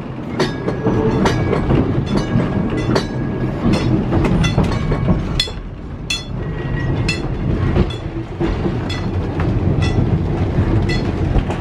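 Vintage Los Angeles Railway streetcar running, heard from inside the car: a steady low rumble with frequent irregular sharp clicks and clacks, and a few brief thin tones.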